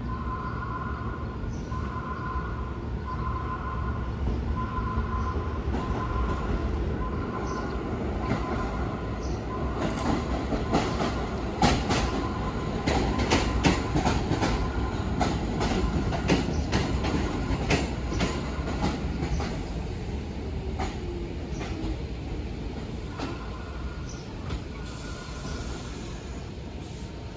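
New York City subway train running through the station with a steady rumble, its wheels clacking sharply and rapidly over the rail joints for several seconds in the middle. A repeating beep sounds about once every second and a half at the start and again near the end.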